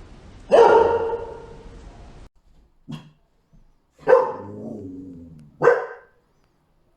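Dog barking: four barks at uneven intervals, the first and third loud with a drawn-out tail, the second short and faint.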